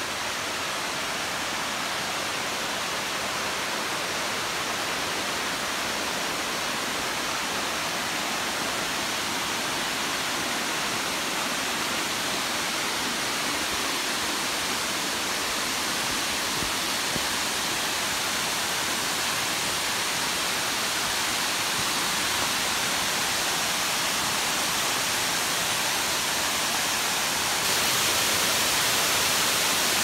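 Waterfall rushing: a steady hiss of falling water that grows gradually louder, with a small step up near the end.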